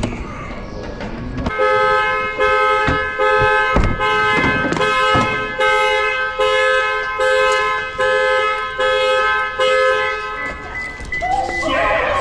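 Car alarm going off: the car's horn honking over and over in an even rhythm, which stops about eleven seconds in. This is typical of the anti-theft alarm being set off when a locked car's door is opened without the key.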